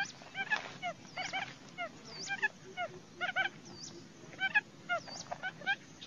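A chorus of short bird calls, each hooking upward in pitch. Several overlap at different pitches and repeat at irregular intervals. This is a trapping lure recording presented as barred buttonquail calling.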